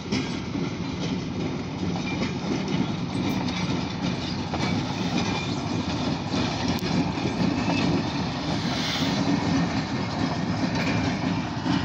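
Light power move of diesel locomotives running with no cars attached, rolling past with a steady engine and rail sound.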